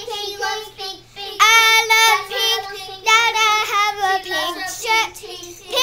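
Young girl singing a made-up song in a high voice, in phrases with several drawn-out notes.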